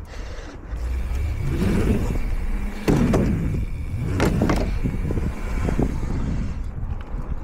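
Mountain bike tyres rolling over concrete skate park ramps, a steady low rumble, with two sharp knocks about three and four seconds in and a lighter one near six seconds.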